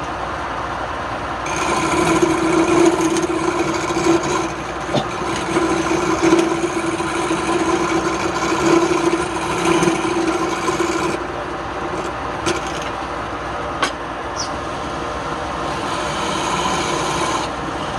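Wood lathe running with a steady hum while a tool or abrasive is held against the spinning wood. This gives a rasping rub from about two seconds in until about eleven seconds, and again briefly near the end.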